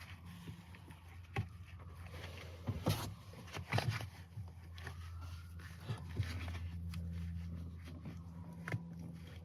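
Scattered knocks, clicks and scuffs of a stainless steel pedal cover being pressed and worked onto a truck's brake pedal, the loudest a few seconds in, over a steady low hum.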